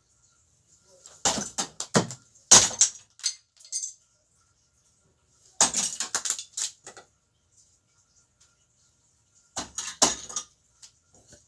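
Lego bricks crashing and clattering as a Lego fire alarm model is smashed apart. It comes in three bursts of clicks and rattles: about a second in, in the middle, and near the end.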